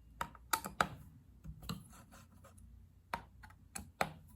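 A hex driver working the radio plate screws of an Infinity IF18-2 RC car chassis as they are loosened: a run of sharp clicks and small knocks with light scraping between, three close together in the first second and a few more near the end.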